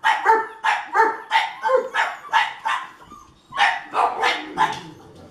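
Seven-week-old puppy barking in short, high yaps, about three a second. There is a brief pause about three seconds in, then a few more yaps.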